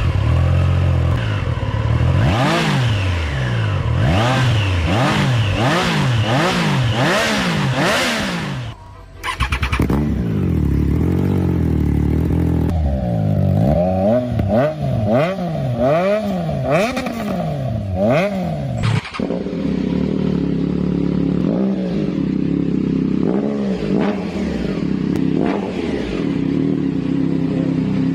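Triumph Daytona 675R inline three-cylinder engine revved repeatedly through aftermarket exhausts, in three clips. The first two are quick blips that rise and fall about once a second. The last, from about nineteen seconds in, is mostly idle with a few short blips.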